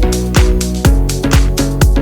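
Background music with a steady beat: a kick drum about twice a second under sustained synth-like tones.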